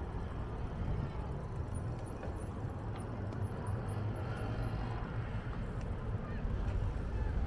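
Low wind rumble on the microphone and road traffic noise from riding a bicycle along a city street. A faint high tone comes and goes near the middle.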